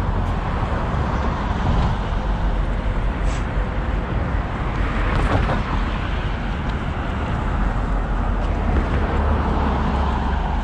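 Road traffic on a busy street: cars passing close by in a steady rumble of engines and tyres.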